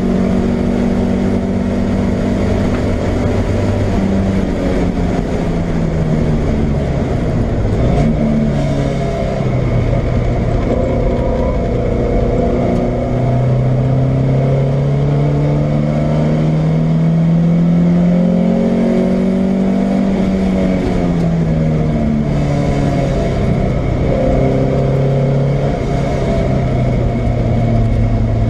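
Alfa Romeo 105 twin-cam four-cylinder race engine heard from inside the car on track, revving up and down through the gears with a long climb in pitch midway. It rattles when coming off the throttle, from an engine running with one top piston ring completely broken.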